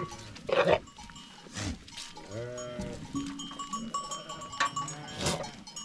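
Goats bleating twice, with a bell ringing in the flock and a few short sharp knocks.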